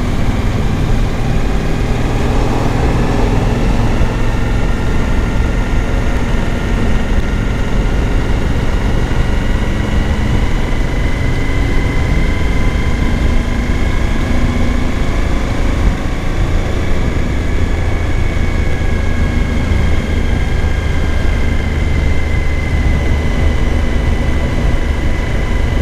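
Suzuki V-Strom 1000 motorcycle running at a steady cruise while being ridden, its V-twin engine note holding even with slight, slow rises and falls in pitch.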